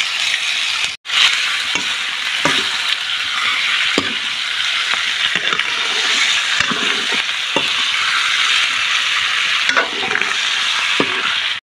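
Chicken pieces frying in hot oil in a kadhai, with a steady loud sizzle. A metal ladle scrapes and knocks against the pan now and then as the pieces are stirred, and the sizzle breaks off briefly about a second in.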